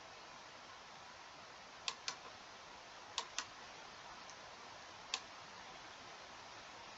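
Computer mouse clicking: five short, sharp clicks, two quick pairs and then a single one, over a faint steady hiss.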